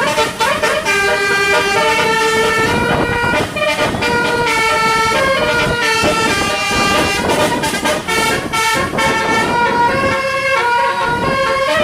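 A bus's basuri musical horn playing a tune of held notes that step up and down, over traffic noise.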